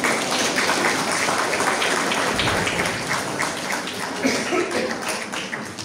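Audience applauding, a dense patter of many hands that starts abruptly and dies away near the end.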